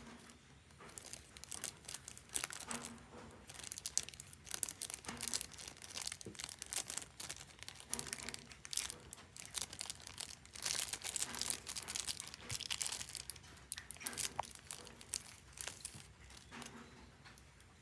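Thin clear plastic poly bag crinkling and rustling in irregular bursts as fingers work it open to free a small plastic spear accessory.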